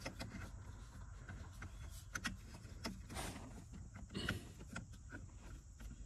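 Faint handling sounds of a plastic wiring connector being worked onto the accelerator pedal's sensor plug: scattered small clicks and brief rustles from fingers and a glove on plastic.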